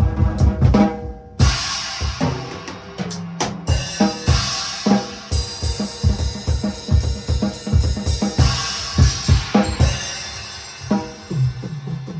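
Drum kit played solo: rapid rolls and hits on the drums and bass drum, with cymbal crashes about a second and a half in and again around five seconds in.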